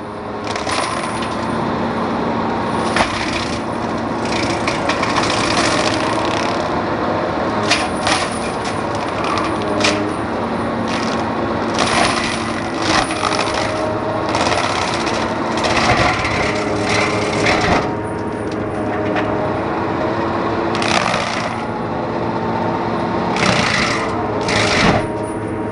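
Excavator-mounted forestry mulcher with a hydraulically driven rotor shredding ash trees. A steady hum of engine and hydraulics runs under irregular bursts of wood cracking and splintering.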